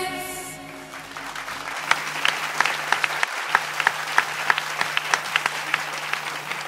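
Audience applauding, with many individual sharp claps standing out, building up about a second in as the dance track's last notes fade out at the start.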